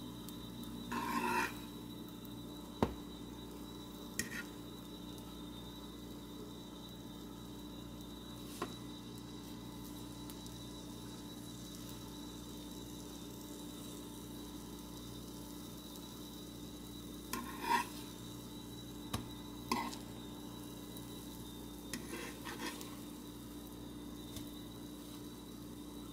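Bread slices frying in a nonstick pan with a faint steady sizzle, while a metal fork scrapes and taps against the pan now and then, with a sharp tap about three seconds in and a cluster of scrapes in the second half.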